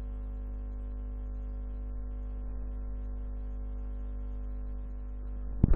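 Intro music of steady, held chord tones at an even level, with a few loud knocks near the end.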